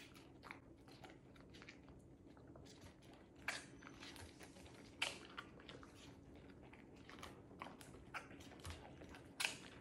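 Siberian husky eating cheese-ball snacks off a plate: faint, irregular chewing and crunching, with louder crunches about three and a half seconds in, at five seconds and near the end.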